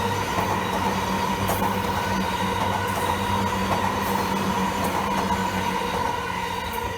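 Yamanote Line electric commuter train running past over a level crossing, wheels clicking over the rails, with a steady high tone throughout. The sound starts fading near the end as the train moves off.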